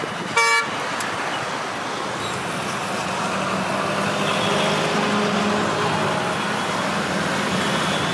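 Steady road traffic noise, with a short vehicle horn honk about half a second in.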